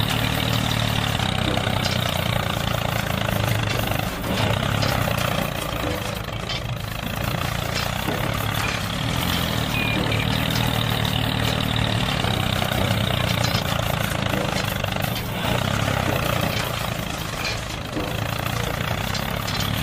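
Mini tractor's engine running steadily at an even pitch.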